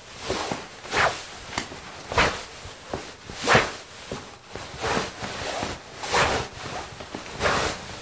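Foley of trouser fabric swishing: a run of short, brisk swishes of cloth rubbing on cloth, roughly one every second, some louder than others.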